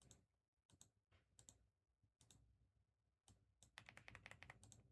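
Faint typing on a computer keyboard: scattered key clicks, then a quick run of clicks near the end.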